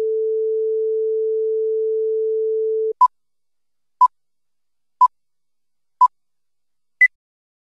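Steady test tone played over colour bars for about three seconds, then a countdown leader's beeps: four short identical beeps a second apart, followed by a fifth, higher-pitched beep.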